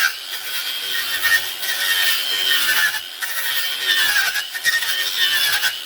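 Electric power sander running against pallet wood: a steady motor whine over harsh abrasive noise. The pitch sags now and then under load, with a few brief dips as the sander is lifted or shifted.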